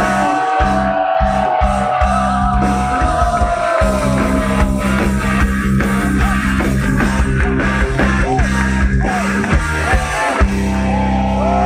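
Heavy metal band playing live through a loud PA: distorted electric guitars play a lead line with bent, wavering notes over steady held bass notes and a drum kit.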